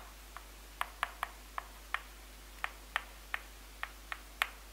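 Chalk clicking against a blackboard as words are written: about a dozen short, sharp taps at an uneven pace, a few a second.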